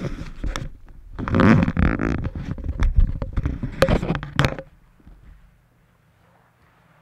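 Cloth rustling and shuffling of a seated person shifting position, loud and close on a headset microphone, with scattered small knocks. It stops about two-thirds of the way in, leaving a faint low hum.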